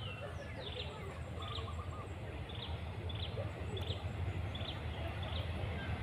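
Bird chirping: a string of short, high chirps repeated about once a second, over a steady low rumble.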